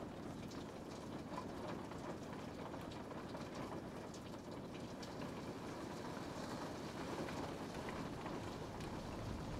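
Steady rain falling, with many scattered individual drops ticking.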